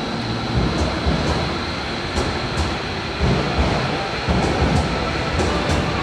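Hankyu electric train running past along the platform: a steady rumble of the passing cars, with wheels knocking at irregular intervals over rail joints.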